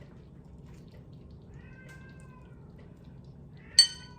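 A faint high-pitched call that rises and falls about two seconds in, then a short, sharp high squeak near the end, over a low steady hum.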